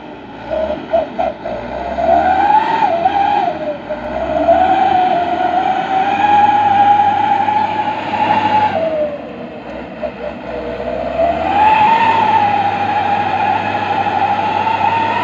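Canter 4x4 truck labouring through deep mud. Its engine and drivetrain whine rise and fall in pitch as it is revved and eased off, dipping briefly about two-thirds of the way through before climbing again.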